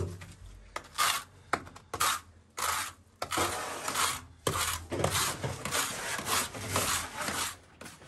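Steel trowels and a mortar hoe scraping through wet fibre-reinforced cement as it is spread on a basement wall and worked in a mortar tub. The sound is an irregular run of scraping strokes, some brief and some lasting about a second, with a few sharp clicks.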